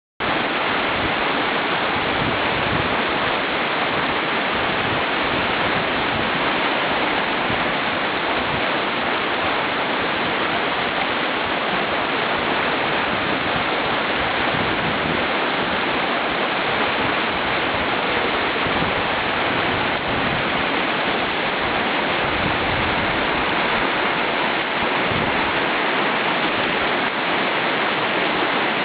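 Whitewater river rapids rushing steadily, a constant dense wash of churning water.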